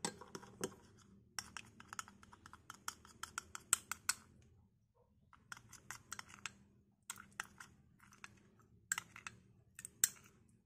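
White plastic spoon stirring thick, sticky slime mixture in a small glass bowl: rapid wet clicks and squelches in runs, with short pauses.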